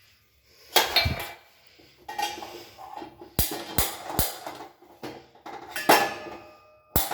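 Metal kitchenware clanking against a steel cooking pot on the stove: about six sharp knocks and clinks, each leaving a ringing tone.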